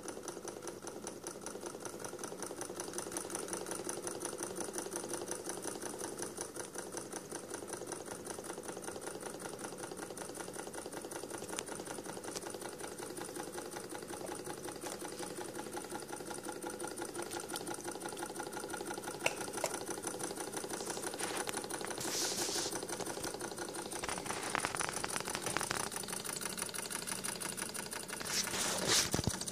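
Small homemade alcohol-fired Stirling hot air engine running steadily, its crank, piston and flywheel making a fast, even mechanical clatter. A few brief rustles of handling noise, the loudest near the end.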